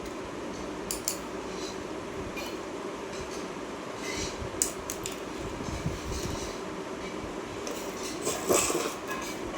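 A few light metallic clicks and clinks, the loudest near the end, over a steady low hum.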